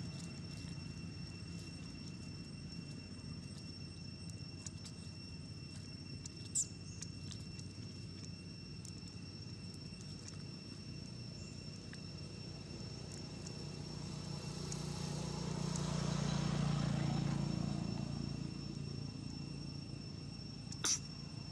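Insects droning in two steady high tones. A low rumble swells to its loudest about three-quarters of the way in and fades, and two sharp clicks come, one about a third of the way in and one near the end.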